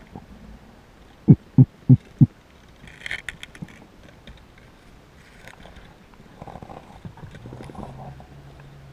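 Muffled underwater knocks: four heavy low thumps about a third of a second apart, then a cluster of sharp clicks, with a low steady hum starting near the end.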